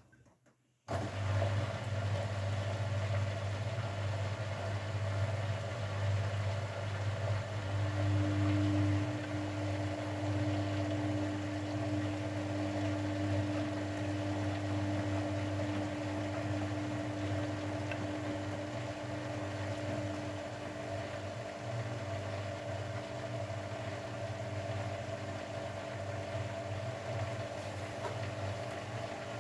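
Grundig Mini 14 washing machine starting up suddenly about a second in and then running with a steady low hum. A higher steady whine joins it for a stretch in the middle.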